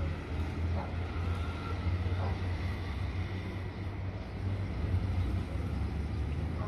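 Distant jet airliner's engines running: a steady low rumble with a faint high whine above it.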